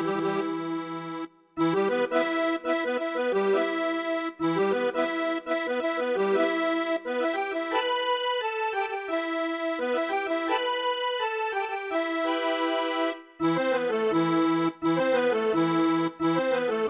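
Electronic keyboard playing a cumbia villera melody line, note after note, with two brief breaks: one about a second in and one near the end.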